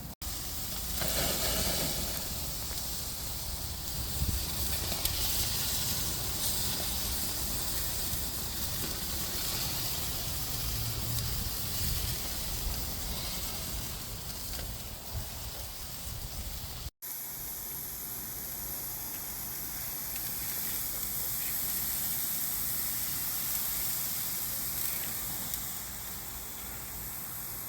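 Steaks sizzling on a barbecue grill: a steady hiss of fat and juices spitting on the hot grate, which is the sign the steaks are searing well. The sound breaks off for an instant about 17 seconds in and goes on much the same.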